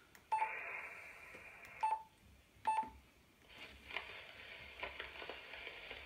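Yaesu FT-817ND handheld transceiver giving three short key beeps as its buttons are pressed, with receiver hiss and crackle from its small speaker. The hiss opens briefly after the first beep and settles into a steady hiss from about halfway through, as the radio is tuned toward the airband.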